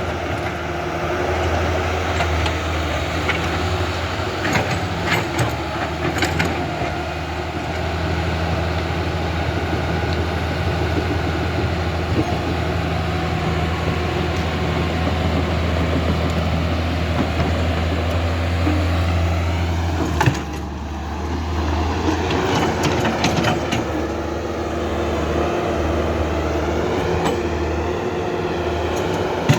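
Remote-control toy construction vehicles running, with a steady motor hum and scattered clicks and clatter; the hum changes about twenty seconds in.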